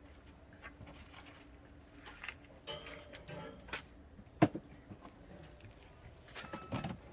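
Scattered light clicks and rustles in a small room, with one sharper knock about four and a half seconds in.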